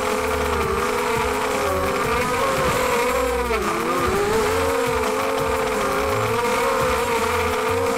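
Emax 250 racing quadcopter's four 2204 2300KV brushless motors and propellers whining in flight. The pitch wavers with throttle, dips sharply about three and a half seconds in, and climbs back.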